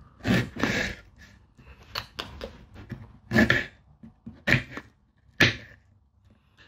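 Fruit being cut and handled for a fruit salad: a string of about five short noisy sounds, roughly one a second, the first of them longer than the rest.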